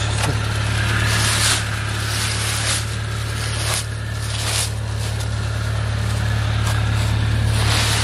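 Dry leaves crackling and rustling in several short bursts as they are pulled out of a UAZ Hunter's grille by hand, over the steady hum of the vehicle's idling engine.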